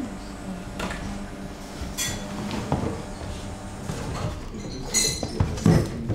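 Café crockery and cutlery clinking over a steady low hum. There is a bright ringing clink about two seconds in and a stronger one about five seconds in, with a few small knocks between them and a dull knock near the end.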